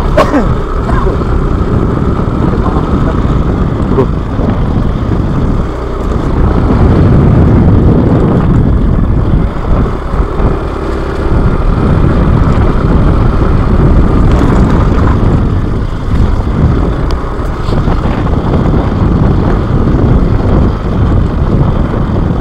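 Motorcycle engine running steadily while riding, mixed with heavy wind rumble on the microphone that swells louder in the middle.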